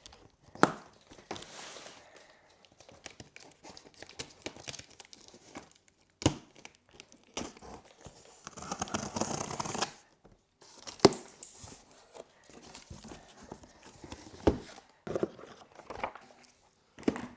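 Packaging being unwrapped: paper and plastic wrapping tearing and crinkling in short bursts, with one longer tearing stretch about nine seconds in. A few sharp knocks come in between.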